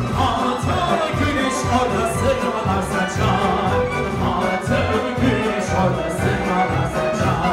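Music with a steady beat, and a singer on a microphone with a crowd singing along.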